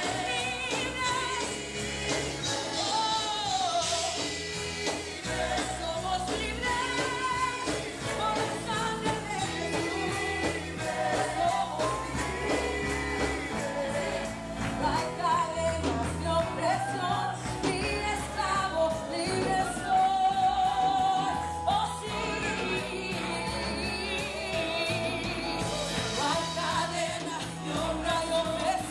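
Live worship band music: a woman sings lead through a microphone with backing singers, over drum kit and keyboard amplified through PA speakers.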